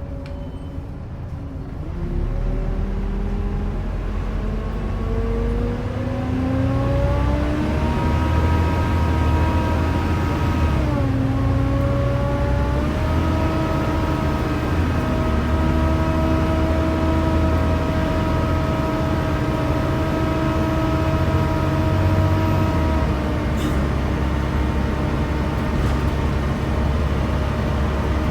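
Volvo B7TL double-decker bus's engine and driveline heard on board as it pulls away: a hoover-like whine rises in pitch for several seconds, dips briefly at a gear change about eleven seconds in, then holds steady at cruising speed before easing off a few seconds from the end.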